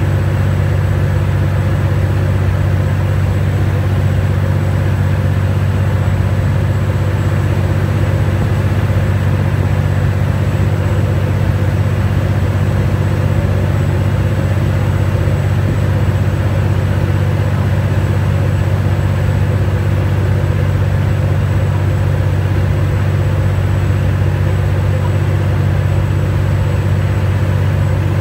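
Steady low drone of a high-speed boat's engines running at an even cruising speed, with no change in pitch or level.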